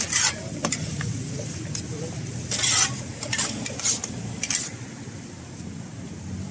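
Metal ladles scraping and clanking against a large steel frying pan as a cook stir-fries noodles, in irregular strokes with one longer scrape about two and a half seconds in, tailing off after about four and a half seconds. Underneath is a low steady hum.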